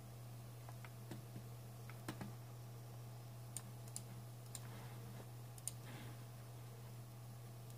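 Faint, scattered clicks of a computer mouse and keyboard, about a dozen over several seconds, over a steady low electrical hum.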